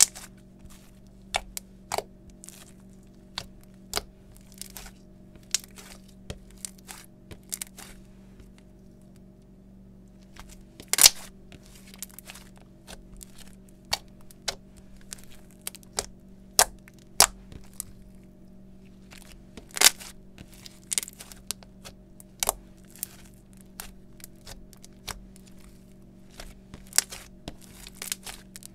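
White slime being pressed and folded by hand, giving off sharp, irregular pops and crackles as trapped air bursts, a couple of times a second, with two louder pops about 11 and 20 seconds in. A faint steady low hum runs underneath.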